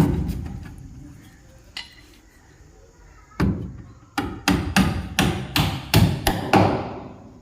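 Sharp knocks on wood, like hammer blows: one loud knock fading at the start, then about nine quick strikes starting about three and a half seconds in.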